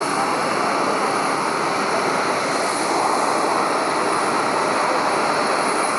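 Steady rushing jet noise from a Boeing 787-8 Dreamliner on its landing approach, with a thin, steady high whine above it.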